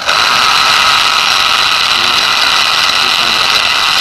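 Electric angle grinder with a slightly loose diamond cutting disc running free at a steady speed, a constant whine over a loud hiss. The 220-volt grinder is being run on about 44 volts DC taken straight from solar panels.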